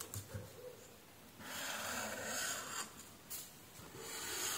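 A pen rubbing across paper in two long drawn strokes, each lasting about a second and a half. The second stroke starts about four seconds in.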